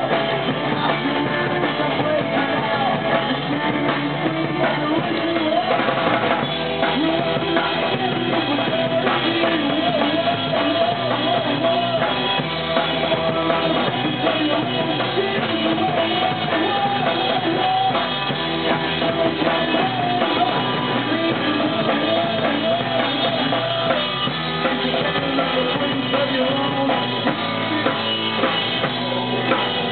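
Live rock band playing a song with a drum kit and guitar.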